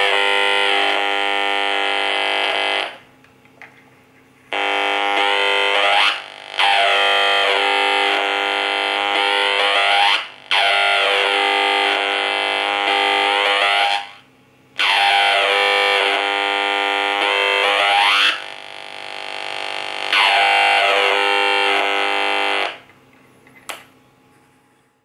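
AM radio picking up interference from a rotary light dimmer switch: a loud, many-toned buzz whose pitch pattern slides and shifts as the dimmer knob is turned. It cuts out for a second or so about three seconds in, drops out briefly several more times, and stops near the end.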